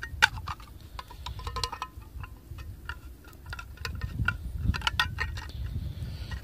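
Swiss Army Trekker knife's can opener levering its way around the lid of a thin tin can: a run of sharp metallic clicks and tinny ticks at uneven intervals, over low handling noise.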